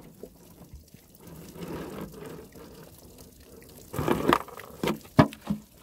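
Water being poured out of a plastic gallon jug, followed by a few sharp knocks about four seconds in.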